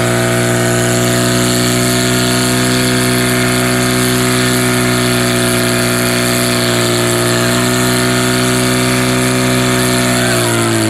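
Portable fire pump's petrol engine running steadily at high revs under load, pumping water through the hose lines to the nozzles. The engine pitch begins to dip at the very end.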